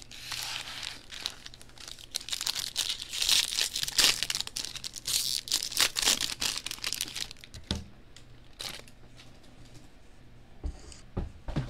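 Foil wrappers of baseball card packs crinkling and tearing as they are ripped open and crumpled by hand, a dense crackle for about the first seven seconds. It then goes quieter, with a few low knocks near the end.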